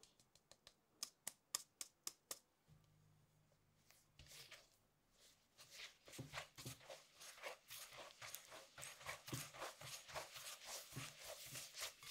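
A fine-mesh sieve is tapped about ten times in quick succession to shake flour through. Then a silicone spatula folds and scrapes flour into thick chocolate batter in a glass bowl, in soft rhythmic strokes of about two to three a second.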